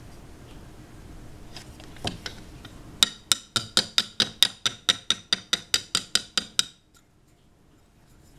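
Buffalo-bone scale blanks knocked against each other or the table: a single knock, then a quick, even run of hard clicky taps, about five a second for three and a half seconds, stopping suddenly.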